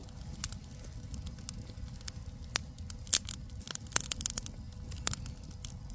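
Wood fire crackling faintly, with irregular sharp pops over a low rumble.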